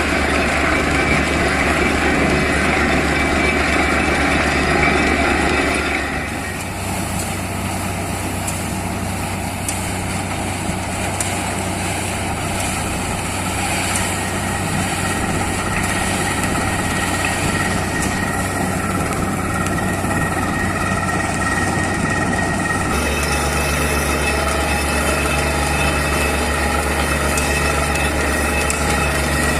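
Heavy diesel engine of a truck-mounted borewell drilling rig running steadily. Its sound changes abruptly about six seconds in and again about 23 seconds in.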